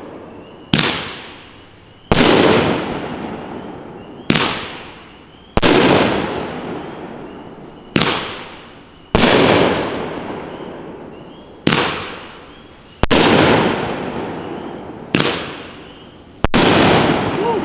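Consumer 7-shot firework cake (Class B Insight) firing aerial shells. About ten sharp bangs come one every one to two seconds, each followed by a rolling echo that fades away.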